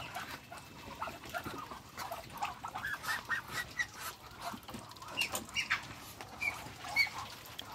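Muscovy ducks calling with many short, rising peeps in quick succession.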